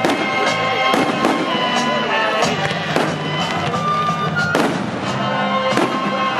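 Aerial fireworks bursting: a run of sharp bangs, roughly one a second, with music playing underneath.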